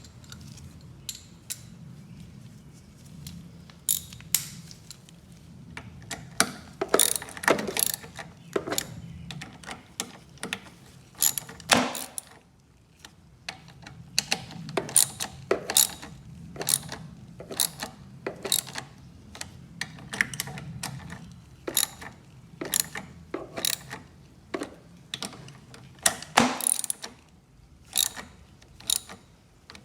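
Irregular metallic clicks and clacks of hand tools and parts, some in quick runs like a ratchet wrench, as parts are fitted and bolts tightened back onto a lawnmower engine.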